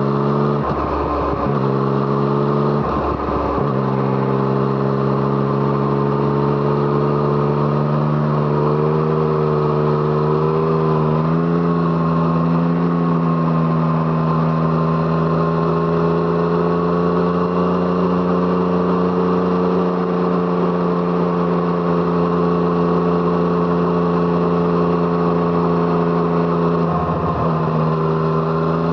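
Yamaha MT-09's inline three-cylinder engine through an Arrow Thunder aftermarket exhaust, heard from onboard while riding. A few quick gear changes in the first few seconds briefly break the engine note. After that the engine holds a steady pitch at constant throttle, rising slightly about eleven seconds in. There is another shift near the end.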